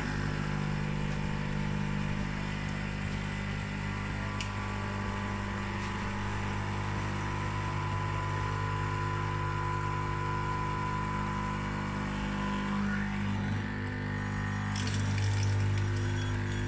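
Cookworks espresso machine's pump buzzing steadily as it forces descaling solution through; it is straining, which the owner puts down to scale blockages. A hissing sputter joins in near the end.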